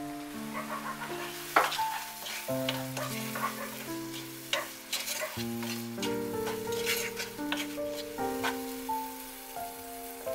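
A wooden spoon stirring and scraping chopped tomatoes and masala in a sizzling non-stick pot, with irregular clicks and scrapes. Background music with sustained notes plays throughout.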